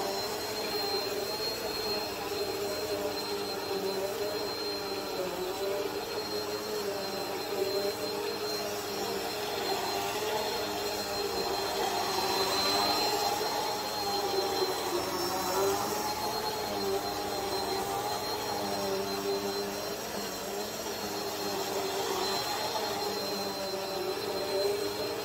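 Bagless upright vacuum cleaner running steadily as it is pushed back and forth over a wool rug, its motor note wavering slightly as it moves, with a thin high whine above it.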